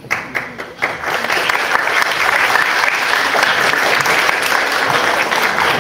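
Audience applauding: a few scattered claps at first, filling out within about a second into steady applause.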